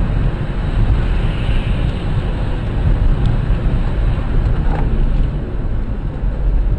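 Car driving on a wet highway at about 80 km/h, heard from inside through a dashcam: steady tyre hiss and road noise over a heavy low rumble.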